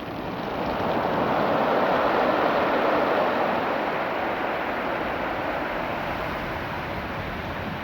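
Surf washing over a beach of small rounded stones, the water rolling the rocks. The wash swells over the first couple of seconds, then slowly eases as it draws back.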